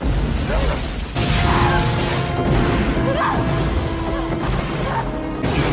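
Movie explosion: a heavy, rumbling blast with crashing debris, growing louder about a second in, under film score with held notes.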